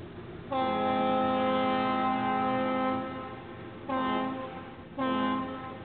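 Ship's horn of the tug-barge Laura L. VanEnkevort / Joseph H. Thompson sounding a salute: one long steady blast of about two and a half seconds, then two short blasts, the long-and-two-short master's salute.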